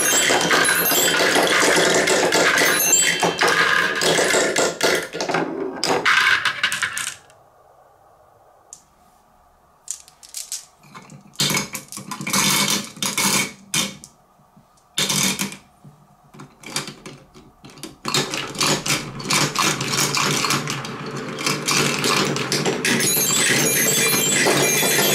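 Marbles rolling and clattering through a Hape Quadrilla wooden marble run. A dense rattle of marbles in the spiral tower's tube stops about seven seconds in. After a short quiet come scattered clicks as marbles are dropped into the funnel, and from about eighteen seconds a dense rolling clatter as a batch of marbles runs round the wooden spiral track.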